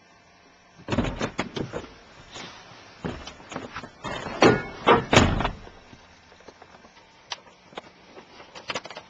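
A troublesome door being banged and rattled: a run of sharp knocks about a second in, the loudest thumps around four to five seconds in, and a few light clicks near the end.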